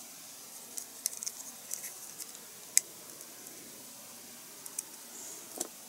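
Small plastic model-kit engine parts being handled and pressed together by hand: scattered light clicks and taps, with one sharper click a little under three seconds in.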